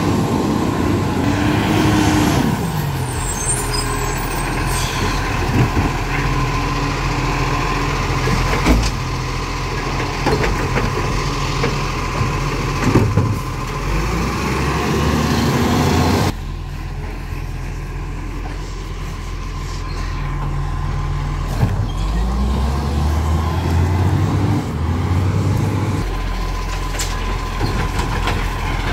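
Automated side-loader garbage truck's diesel engine running, revving up and back down several times as it drives the hydraulic lifting arm, with sharp knocks of bins being gripped, tipped and set down.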